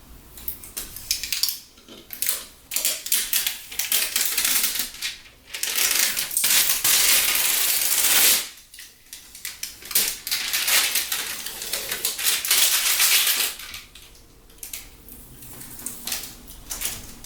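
Protective plastic film being peeled off a new graphics card: crackling, tearing rustles in uneven runs, the longest lasting two to three seconds, then quieter crinkling near the end.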